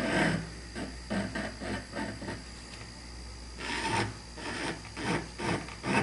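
Foredom flexible-shaft rotary tool turning slowly, its small cutter bit rasping into briar wood in short strokes about three a second, with a brief lull a little past the middle. It is carving a sandblast-style texture into grafted briar.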